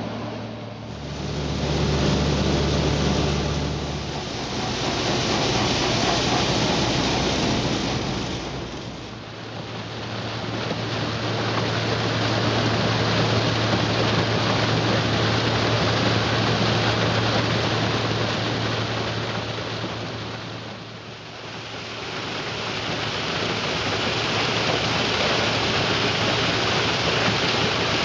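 Claas Tucano 440 combine harvester running with its Geringhoff maize header pulling in corn stalks: a dense rushing noise of stalks and header over a low steady engine hum. The level dips briefly a few times and comes back.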